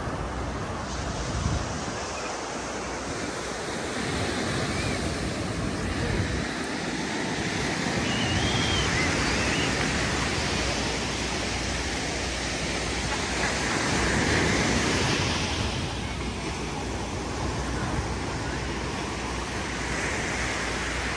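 Ocean surf breaking and washing against the rocks of a jetty, a steady rush that swells louder twice, about eight and fourteen seconds in.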